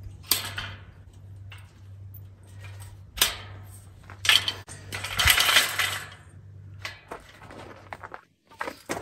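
Metal clanks and rattles from a folding steel mesh table as its frame and legs are swung open and set. Sharp clanks come early and about three seconds in, a longer rattle from about four to six seconds, and quick clicks near the end, with a steady low hum underneath.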